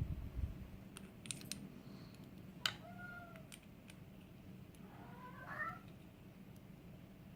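A cat meowing twice in the background, the first call arching and the second wavering upward, over a few light sharp clicks from the lock and tools being worked.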